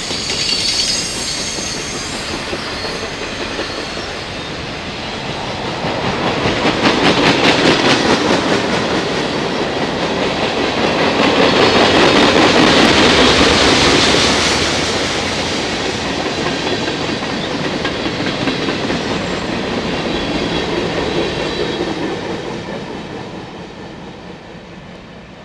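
CSX freight train's cars rolling past, wheels clattering over the rail joints in a clickety-clack rhythm. The rumble swells twice, loudest about halfway through, then dies away over the last few seconds.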